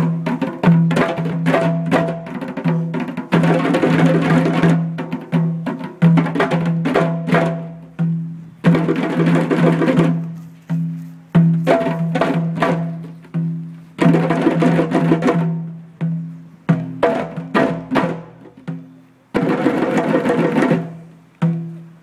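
A group of djembes played together by hand in a shared rhythm, with dense flurries of rapid strokes every few seconds between sparser beats.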